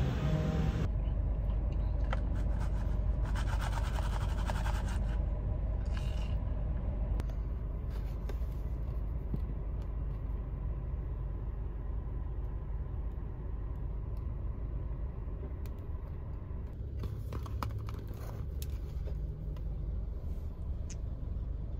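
Steady low rumble inside a car's cabin, with now and then the rustle and scrape of a paper donut box being opened and handled.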